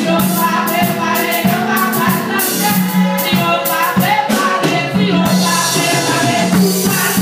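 A woman singing a gospel song through a microphone and PA, with voices joining in and a rhythmic percussion accompaniment.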